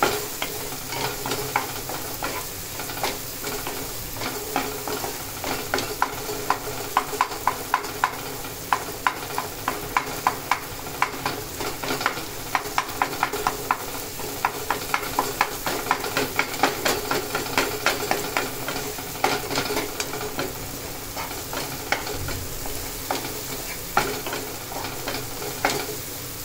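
Chopped onion and tomato sizzling in a nonstick frying pan, cooking down for a masala base. A spatula scrapes and taps across the pan in quick runs of strokes as it is stirred.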